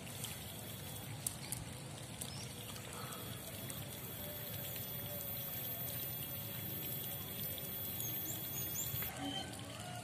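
Faint steady trickle of water, with a thin high steady tone through most of it and a single sharp click about a second in.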